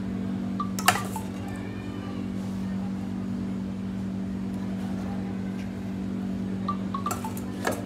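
Steady low machine hum running throughout, with a sharp clink of a metal spoon on steel about a second in and a few more clinks near the end as filling is spooned onto rumali roti.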